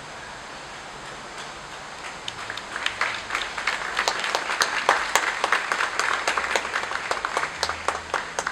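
A crowd of guests applauding. The clapping starts about two seconds in, is loudest through the middle, and thins out near the end.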